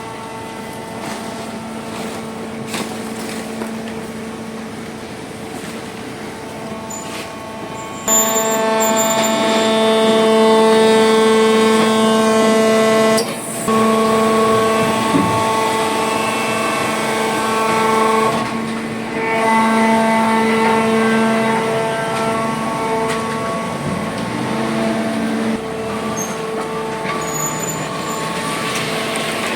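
A machine running with a steady, even-pitched hum. It gets louder about eight seconds in, cuts out for a moment a few seconds later, and eases back near the end.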